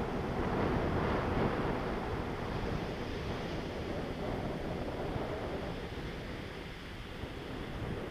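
Steady rush of airflow buffeting the microphone of a camera carried on a paraglider in flight, easing a little toward the end.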